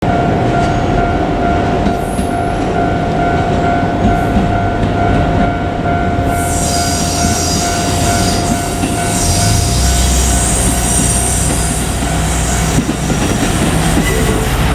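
KiHa 200 diesel railcar running with a steady whine. A high hiss joins about six seconds in, and a deeper low rumble comes in about ten seconds in.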